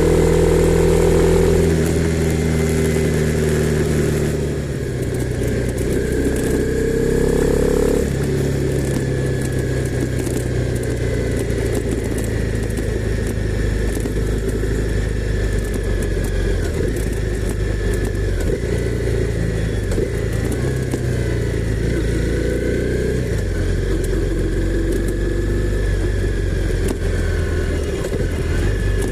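Honda CB300R's single-cylinder engine running, its note stepping to a new pitch several times, most clearly in the first eight seconds, then holding fairly steady with small shifts.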